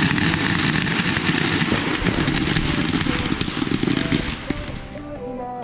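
Consumer fireworks crackling: a dense stream of rapid pops and crackles that thins out and fades about four to five seconds in, leaving background music.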